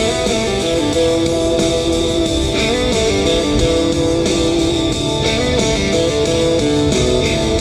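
An instrumental passage of a song led by electric guitar, with sustained notes changing pitch in steps over a steady band.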